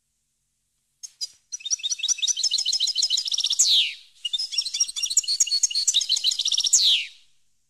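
European goldfinch singing: two short notes about a second in, then two rapid twittering phrases separated by a brief pause, each ending in a loud note that slides steeply down.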